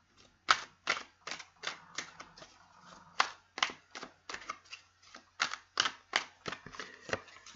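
A deck of tarot cards being shuffled by hand: a quick run of sharp card clacks, about three a second, beginning half a second in.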